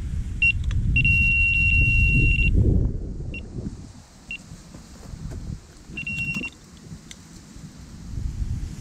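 Electronic carp bite alarm sounding as a fish takes line: a short beep, then a long steady high tone for about a second and a half, single beeps after it, and another short run of tone near the end. Heavy wind rumble on the microphone underneath.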